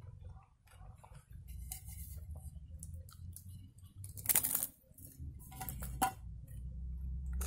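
Eating flatbread off an enamel plate: quiet handling and chewing sounds, with a short noisy burst about four seconds in as the plate is brought up to the mouth and a sharp click near six seconds in as the bread is picked at on the plate.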